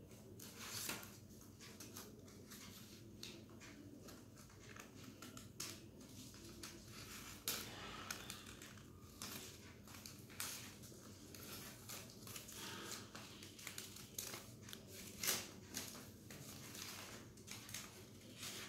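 Scissors snipping through paper in short, irregular cuts, with the paper rustling and crinkling as it is held and turned; two snips, about halfway and near the end, are louder than the rest.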